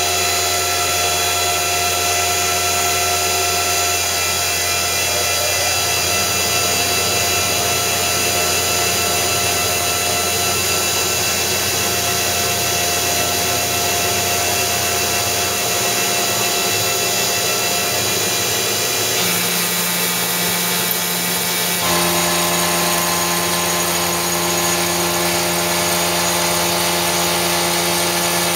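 Belt-driven RF-45-type CNC milling machine hogging metal with a 5/8-inch two-flute carbide end mill at about 5,000 RPM, feeding at 60 inches per minute with a 0.22-inch depth of cut: a loud, steady cutting whine with high ringing tones. The tone changes twice, about two-thirds of the way through and again a few seconds later.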